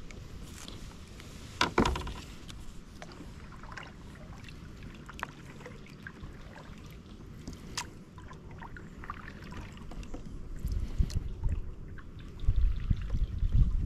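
Water lapping and splashing around a kayak's hull, with scattered small knocks. A sharp knock comes just under two seconds in, and heavier low thumps fill the last few seconds.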